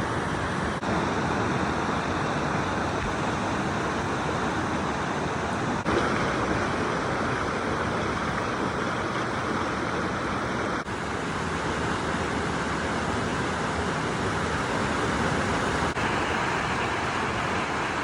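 Steady rush of flowing stream water, with brief slight dips in level about every five seconds.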